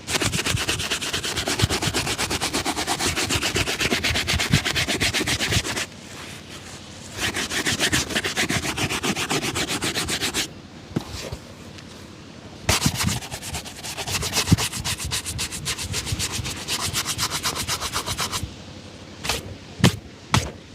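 A leather shoe being brushed fast with a shoe-shine brush, rapid back-and-forth strokes in three long runs with short pauses between them. A few sharp taps come near the end.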